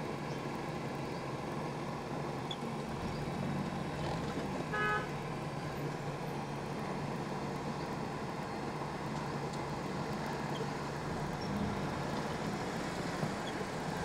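Steady traffic and engine noise heard from inside a car creeping through slow, crowded street traffic, with one short vehicle horn toot about five seconds in.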